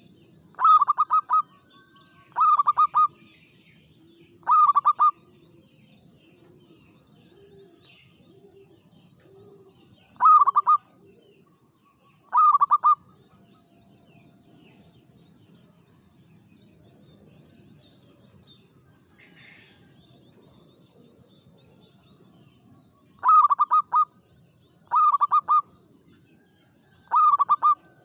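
Zebra dove (local perkutut) singing: eight short, rapid trilled cooing phrases, three close together at the start, two about ten seconds in, and three near the end. Softer low coos and faint chirps of other birds sound between the phrases.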